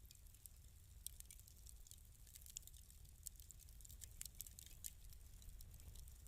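Wood fire crackling faintly in a fireplace: scattered sharp pops and snaps over a low steady rumble.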